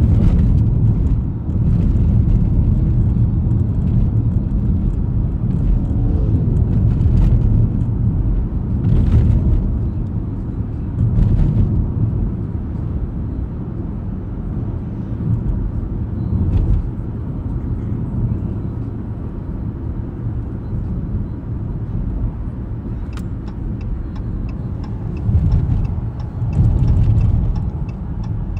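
Road and tyre noise inside a moving car's cabin: a steady low rumble, with a few brief knocks scattered through it.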